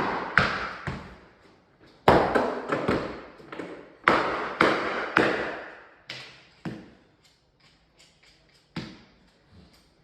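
Irregular knocks and taps on timber floorboards being fitted during a glue-down install, in clusters with a short echo after each hit.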